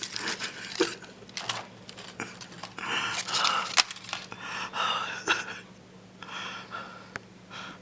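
Gold foil wrappers of Ferrero Rocher chocolates crinkling and tearing as they are unwrapped, in quick irregular crackles and clicks.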